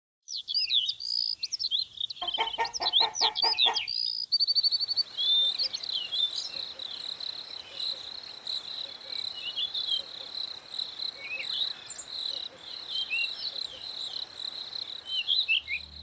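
Birds chirping over a steady high insect trill, with a louder run of rapid repeated calls about two to four seconds in.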